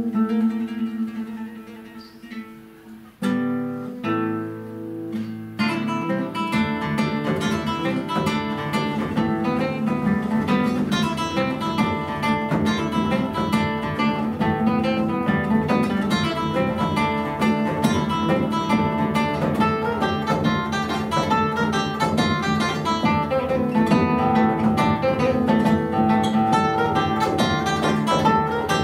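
Classical guitar and bodhrán playing folk dance music. A held guitar chord dies away, two strong chords sound about three and four seconds in, then quick picked guitar runs on with the bodhrán adding a low, steady beat from about six seconds in.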